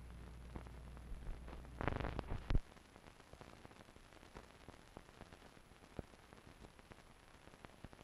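Faint hiss of an old film soundtrack, dotted with scattered clicks and pops. A low hum runs under it and stops after a brief louder burst about two and a half seconds in.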